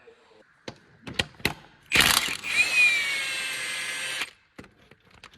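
A power tool runs for about two seconds with a whine that dips in pitch and then steadies, cutting off suddenly, after a few sharp clicks from tools.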